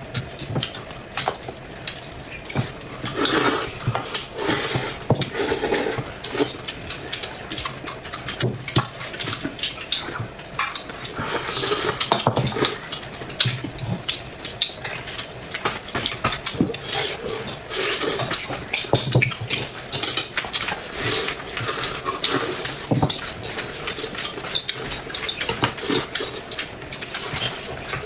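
Close-miked eating sounds: irregular chewing, smacking and slurping, with utensils clicking against dishes.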